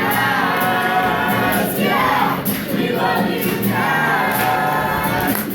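A group of voices singing together in held, drawn-out notes.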